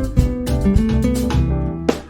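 Background music: acoustic guitar playing a plucked, strummed tune.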